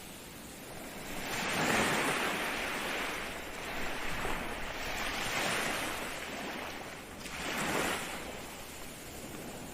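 Ocean waves breaking and washing up the shore in three rushing swells, the strongest about two seconds in and the last near the end.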